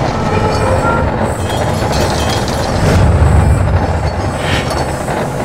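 Intro sound effect of heavy machinery: a dense mechanical rumble with clattering, swelling about three seconds in.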